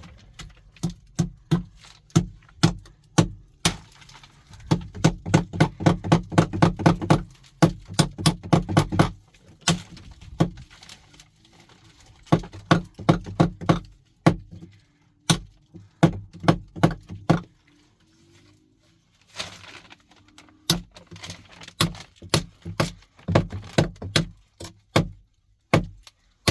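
Rapid hammer blows in runs of several sharp strikes a second, with short pauses between the runs.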